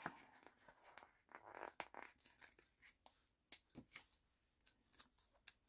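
A paper sticker being peeled off its backing sheet: faint, soft crackling rustles. Then a few light, sharp clicks about three and a half to five and a half seconds in as the sticker sheet is handled.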